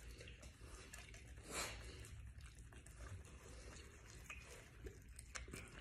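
Faint wet chewing and small clicking of a Virginia opossum eating soft food, with one louder noise about one and a half seconds in.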